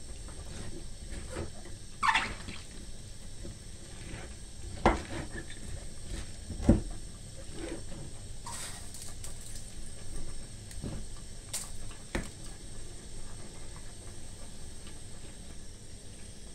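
Kitchen handling sounds while chopped collard greens and garlic are packed by hand into a glass jar: a handful of separate knocks and clinks of glass and utensils, the sharpest about seven seconds in, with soft rustling between them.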